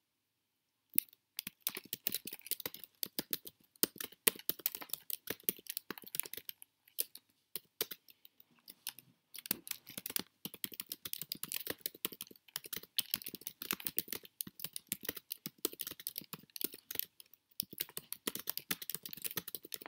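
Typing on a computer keyboard: a fast, uneven run of key clicks that starts about a second in, with a couple of brief pauses near the middle.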